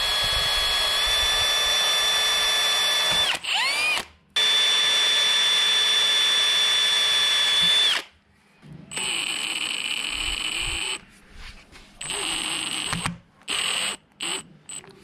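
Milwaukee cordless drill drilling into the metal face of an old diff pinion seal: two long steady runs with a high whine, a brief stop between them, then several shorter bursts near the end.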